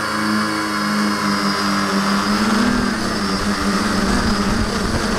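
Electric motors and propellers of a V-tail quadcopter running in flight, heard from a camera on the craft: a steady hum with a high whine, its pitch drifting slightly as the throttle changes. A rough low rumble grows from about halfway through, like wind on the microphone.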